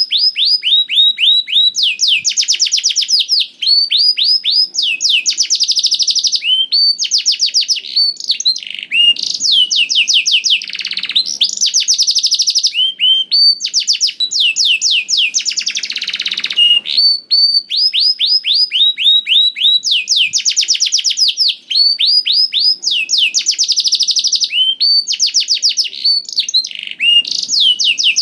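Domestic canary singing continuously: rapid trills of fast repeated notes, switching to a new trill every second or two with hardly a pause.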